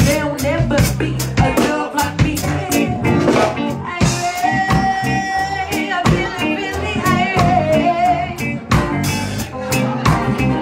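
Live soul band playing with drum kit and guitar and a voice singing, including a long held note about four seconds in.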